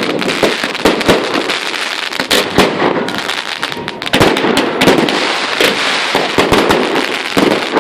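Fireworks display: rapid bangs from bursting shells, several a second, over a continuous dense crackle.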